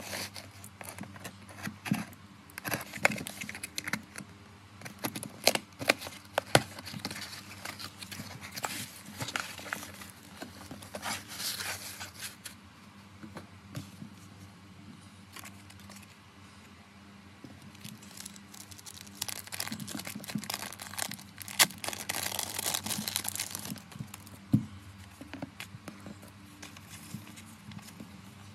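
Packaging crinkling and tearing as a parcel is opened by hand: packing tape is peeled off a cardboard box, and plastic photocard sleeves and paper cards are handled, with scattered taps and clicks. There are two busy stretches of rustling with quieter handling between them.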